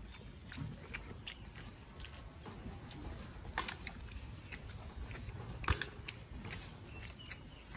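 Metal spoons clinking and scraping on ceramic plates and bowls, with chewing. Two sharper clinks come about three and a half and five and a half seconds in.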